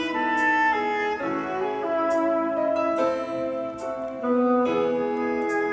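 Recorded music playing back off tape through a Sony TC-K555ESA cassette deck, monitored off the tape during recording: sustained keyboard chords that change every second or so, with a light high tick about every second and a half.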